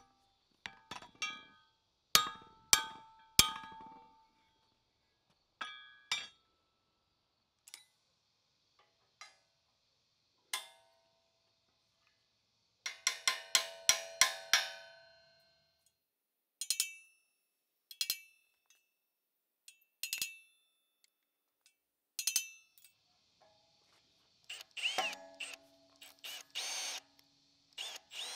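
Hammer blows on steel: sharp ringing metal strikes, spaced irregularly, with a quick run of about seven blows near the middle. Crickets chirp faintly under the first few blows.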